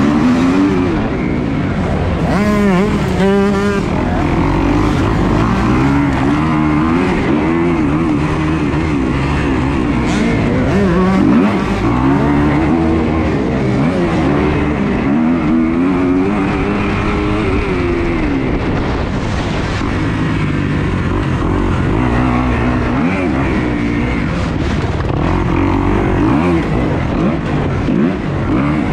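Kawasaki KX dirt bike engine heard up close from the bike, revving hard and easing off over and over. Its pitch climbs and drops every second or two as the throttle is opened and closed around the track.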